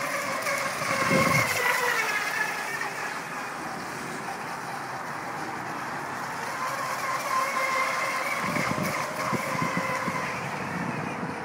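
Electric motor and propeller of a small home-built RC catamaran whining as the boat speeds across the water; the whine bends in pitch and fades about three seconds in, then comes back steady about halfway through. Gusts of wind buffet the microphone a second in and again near the end.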